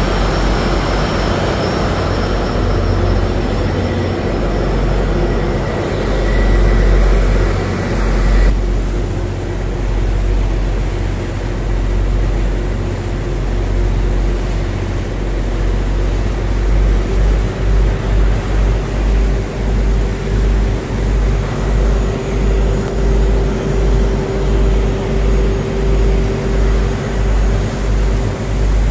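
New tugboat under way: its engines run with a loud, steady low rumble and hum over the churning of the propeller wash behind the stern. The higher rush of noise drops back abruptly about a third of the way in, and from a little past halfway the rumble throbs a little more than once a second.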